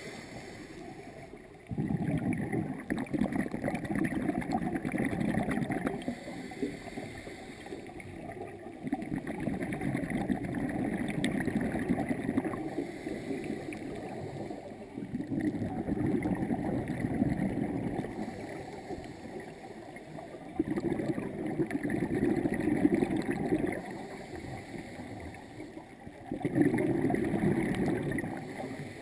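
Scuba diver's breathing heard underwater through a camera housing: the regulator's exhaled bubbles gurgle in loud bursts of a few seconds, about every five seconds, with quieter inhalation pauses between.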